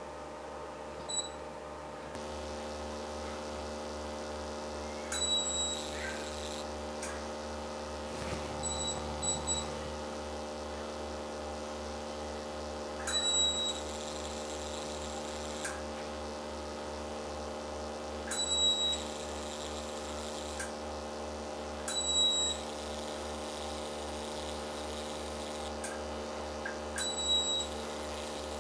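CO2 fractional laser machine humming steadily, with short high beeps every four to five seconds as the handpiece fires its scans on the skin.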